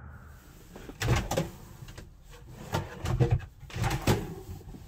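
Large wooden drawers being pulled open and pushed shut: a string of knocks and sliding scrapes starting about a second in.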